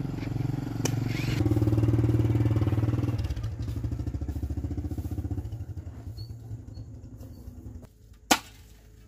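Small motorcycle engine running as it rides off, loudest about two seconds in and fading away. Near the end, one sharp thud of a hoe striking hard ground.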